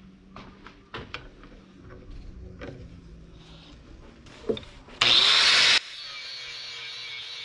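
Metal knocks and clicks as a small brass piece is set and tightened in a bench vise. About five seconds in, an angle grinder with a cutting disc bites into the brass in a loud, harsh burst under a second long, which stops abruptly. A steadier, quieter grinding follows.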